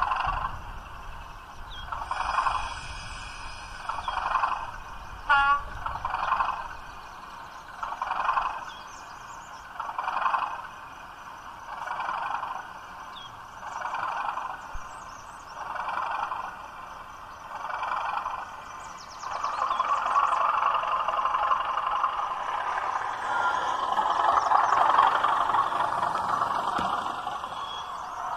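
DCC sound from an OO gauge class 37 model locomotive, playing its English Electric diesel idling with a regular throb about every two seconds. About two-thirds of the way through it revs up and runs louder as the loco moves off. A quick rattle of clicks comes about five seconds in.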